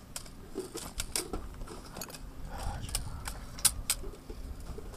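Irregular sharp metallic clicks and clinks, about eight of them, from rifles and gear being handled, over a low rumble of wind on the microphone.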